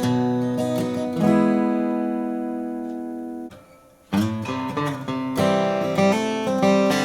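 Taylor Presentation Series PS14ce Grand Auditorium acoustic guitar being played. A chord rings out about a second in and slowly fades, then is damped off suddenly. After a brief pause, playing resumes with further chords.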